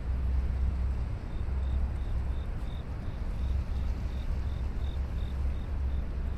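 Steady low rumble of city ambience. From about a second in, a faint high chirp repeats about three times a second over it.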